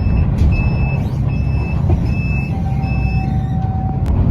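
Repeated high electronic warning beeps, about one every 0.8 seconds, stopping a little over three seconds in, over the low running sound of a city bus's engine. A lower steady tone joins near the end.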